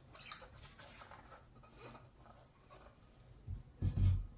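Faint handling noises of objects being moved, with light clicks and scrapes, then a few dull low thumps near the end.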